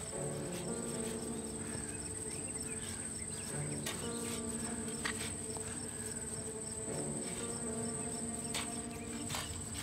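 Insects chirring in a steady, high-pitched unbroken drone, over a music underscore of sustained low notes that shift every few seconds. A few faint clicks come through.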